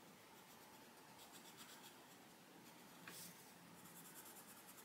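Arteza Expert coloured pencil faintly scratching across the paper of a colouring book in quick, repeated shading strokes, with a short louder scrape about three seconds in.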